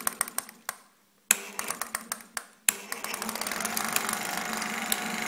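Clicks and knocks from the 1950s Marin film projector's mechanism. About two and a half seconds in, a sharp click sets it running steadily: the film-advance mechanism clatters evenly over a motor hum as the freshly threaded film is test-run to check that it does not catch.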